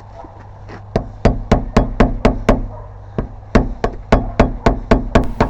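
Steady tapping on a putty knife wedged into the door gap against a doorknob lock's latch, about four sharp knocks a second, with a short pause midway, driving the blade in to push the latch back and bypass the lock.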